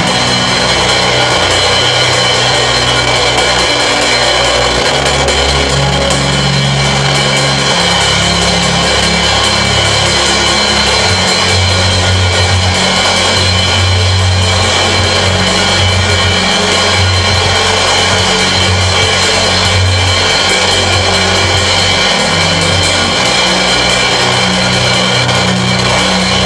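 Live church band music with drums and held bass notes that change every few seconds, under a congregation praying aloud together.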